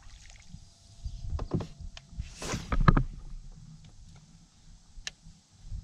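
Knocks and thumps on a fishing kayak's hull and deck as the standing angler shifts his weight and casts. A brief swish comes about two and a half seconds in, followed at once by the loudest thump.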